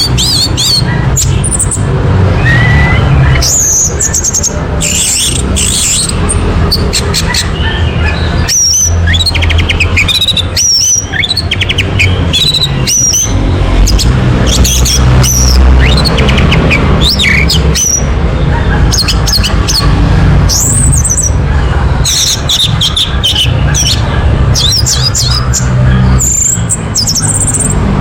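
Orange-headed thrush singing a long run of quick, varied whistled and chirping phrases, played as a lure song to set other thrushes singing. A constant low rumble runs underneath.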